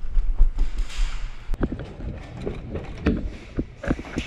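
Running footsteps on a hard floor, with knocks and thumps from gear and the body-worn camera being jostled. A low rumble fills the first second.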